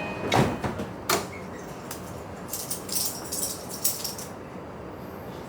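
Inside a train car: two sharp knocks about a second apart, then a couple of seconds of light jingling and rattling.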